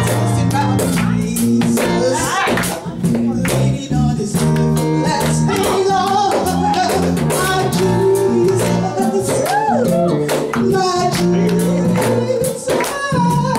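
Live gospel band playing: electric bass and keyboard with a steady beat, and a voice singing over it.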